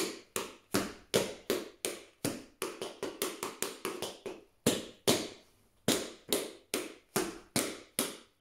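Tap shoes striking the floor as a tap dancer performs a combination without music: a rhythmic run of sharp taps, about three a second, with a few quicker doubles and a brief pause about four seconds in.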